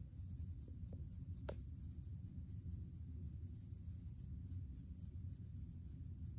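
Black fine-tooth comb scratching through short, wavy hair over a dry, dandruff-flaked scalp, with quiet repeated scraping strokes. There is one sharper click about a second and a half in.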